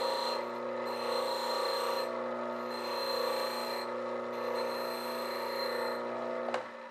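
Bench grinder running with a white wheel, grinding a steel drill blank held against its edge. The grinding hiss swells and fades every second or two as the blank is turned against the wheel. A sharp click comes near the end, as the grinder's hum stops.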